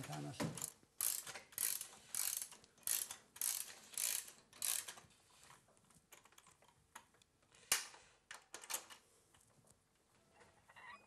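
Ratchet wrench tightening propeller hub bolts: a run of about seven ratcheting strokes, roughly two a second, then a few single clicks near the end.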